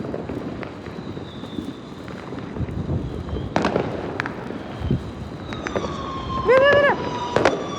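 Fireworks going off: a steady hiss with scattered pops and two sharp bangs, the first about halfway through and the second near the end. A steady whistling tone comes in late.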